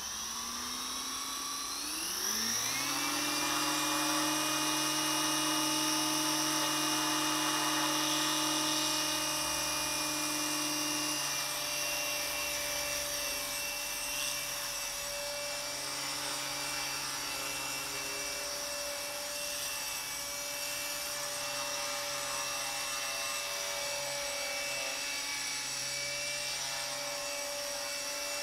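Align T-Rex 250 electric RC helicopter spooling up: the motor and rotor whine rises steeply in pitch over the first few seconds, then holds at a steady pitch as the helicopter hovers.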